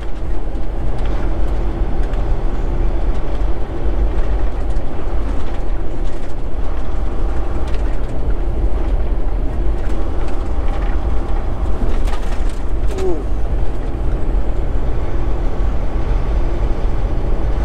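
Steady in-cab drone of a Volvo 780 semi truck cruising on the interstate at about 45 mph: engine and tyre rumble, heaviest in the low end.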